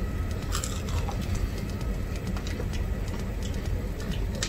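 Two people eating saucy chicken wings: chewing, lip smacks and small wet clicks as the meat is bitten and pulled apart, over a steady low rumble.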